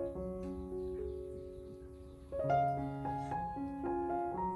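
Background piano music: a slow, gentle melody of held notes, easing off before a new phrase comes in about halfway through.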